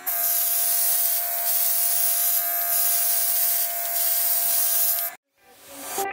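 Airbrush spraying paint, a steady hiss of air, over the steady high whine of a small cordless airbrush compressor (MS-020). Both cut off suddenly about five seconds in.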